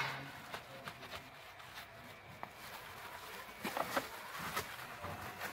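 Faint rubbing of a cloth wiped over a motorcycle drive chain, cleaning off the kerosene and old grease, with a few light clicks about four seconds in.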